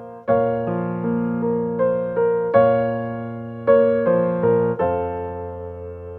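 Background piano music: a slow, gentle melody of single notes over held chords, ending on a chord that rings on and fades.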